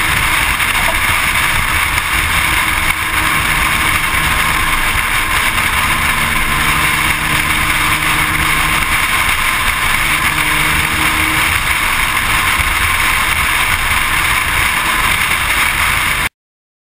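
Steady road and engine noise of a car driving at speed, cutting off abruptly near the end.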